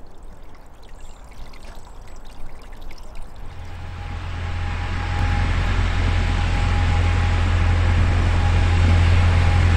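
Narrow-gauge diesel locomotive running. Its steady low drone, with a steady whine above it, comes in about three and a half seconds in and grows louder, over a faint ambience of small clicks.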